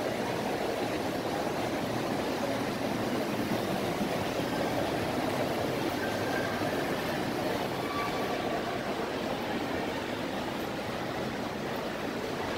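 Steady ambient noise of a busy indoor shopping mall: an even, indistinct hubbub of shoppers with no single voice standing out.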